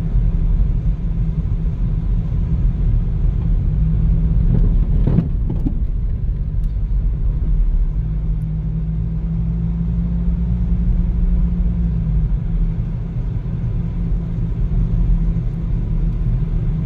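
Car driving slowly on a slushy, snow-edged road, heard from inside the cabin: a steady low rumble of engine and tyre noise, with a short bump about five seconds in.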